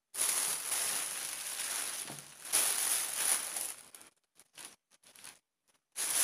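A plastic bag rustling and crinkling as hands rummage in it and lift out mushrooms. The rustling is continuous for about four seconds, loudest a little past halfway through that stretch. It then comes in short bits and starts up strongly again at the very end.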